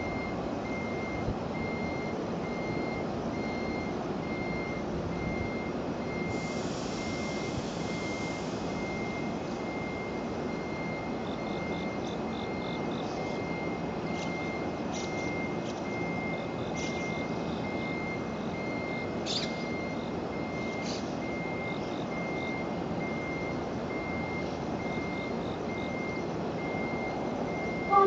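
Electronic warning beeper sounding a regular high beep about once a second over a steady hum from a stationary electric train, with a brief hiss about seven seconds in. The train's horn cuts in right at the very end.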